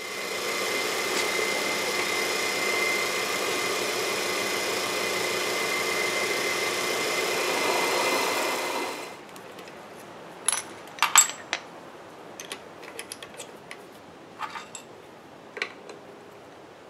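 Drill press running and drilling through a metal bar held in a drill-press vise: a steady whine with a high held tone, which stops about nine seconds in. Then a string of sharp metallic clicks and clinks as the part and tools are handled.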